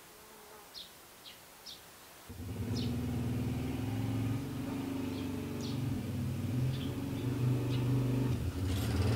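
A motor vehicle engine comes in about two seconds in and grows steadily louder as it approaches. A few short bird chirps sound before and over it.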